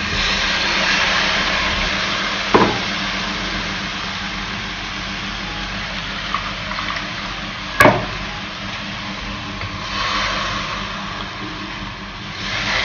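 Watery ground masala paste poured from a steel mixer jar into a hot pan of fried onions and tomatoes, with a steady sizzle and the sound of pouring liquid. Two sharp clinks, about two and a half seconds in and again near eight seconds.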